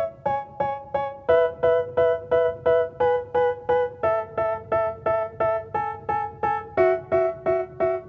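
Background music: a keyboard playing short, quickly fading chords, about three a second, the chord changing every second or so.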